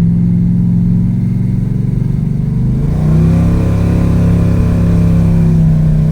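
The 800-horsepower 1970 Chevelle's V8 running under way. Its pitch rises about three seconds in, then holds steady.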